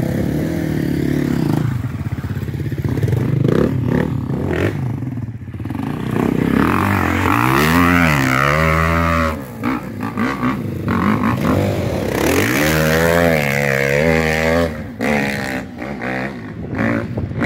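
Off-road vehicle engine running and revving, climbing in pitch and falling back in two long surges, the first about six seconds in and the second about twelve seconds in.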